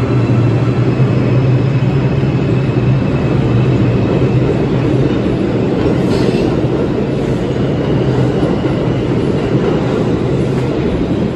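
New York City subway 2 train moving out along the platform of an underground station and gathering speed. Its wheels and motors keep up a loud, steady rumble with a low hum.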